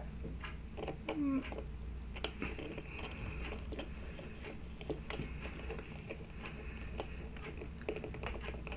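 Faint, scattered small clicks and scrapes of a precision screwdriver turning the tiny M.2 retention screw into a circuit board, with fingertips handling the board and driver, over a low steady hum.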